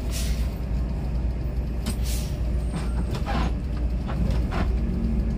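Bus diesel engine running low and steady, with short hisses of the air brakes near the start and about two seconds in.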